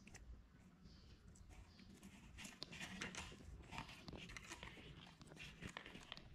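Marbles clicking against each other and a cardboard release gate as they are let out one at a time, one dropping onto and rolling along a modeling-clay track. A faint run of light clicks and taps that thickens about two seconds in.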